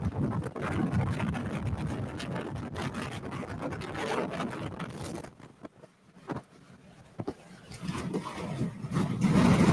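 Rumbling noise of a storm-chase vehicle driving close to a tornado, with wind mixed in. The noise drops away to near quiet for about two seconds midway, then builds back up louder.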